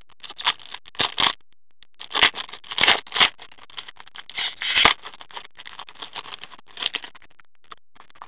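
Trading cards handled in cotton-gloved hands: an irregular run of scraping and rustling as the cards are slid and flipped against each other, with the loudest scrapes in the middle.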